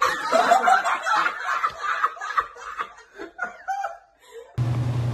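A man laughing in bursts for about four and a half seconds. Near the end the laughter gives way abruptly to a steady low hum.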